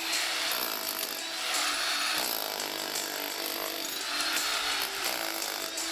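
GEKO 1050 W, 16.5 J electric demolition hammer with a point chisel running steadily, hammering into and breaking up concrete.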